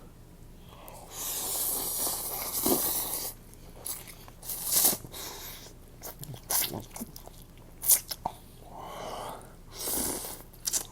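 Noodles being slurped: a long slurp about a second in lasting some two seconds, shorter slurps near five and ten seconds, with chewing and wet mouth clicks in between.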